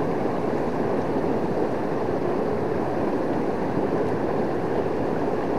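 Steady rushing of a swollen, fast-flowing river running high in flood.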